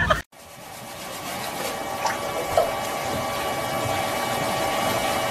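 Steam iron hissing steadily, growing louder over the first two seconds, with a faint steady hum under it.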